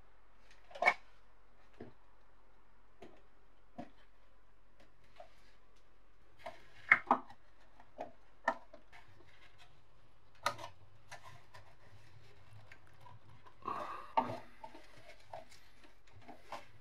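Plastic housing and parts of a kitchen scale being handled and fitted together by gloved hands: scattered clicks and knocks of hard plastic, with sharper knocks about a second in, around the middle and near the end.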